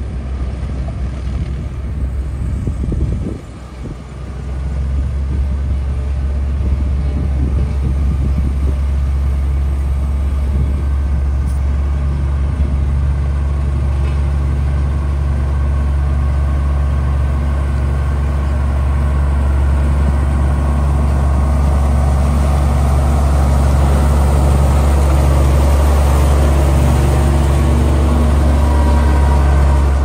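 Motor grader's diesel engine running steadily under load as it grades gravel, a low drone that grows slowly louder as the machine approaches, with rising gravel noise from the blade and tyres toward the end. The level dips briefly about three seconds in.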